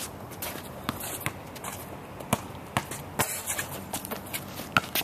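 Basketballs bouncing on a hard court, irregular thuds about every half second, mixed with sneaker footsteps and shuffling.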